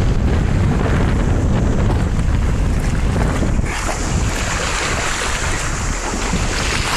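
Wind rumbling on the microphone over the sound of the sea. About three and a half seconds in, the rumble eases and a brighter hiss of shallow sea water splashing and lapping takes over as a large dog wades in the shallows.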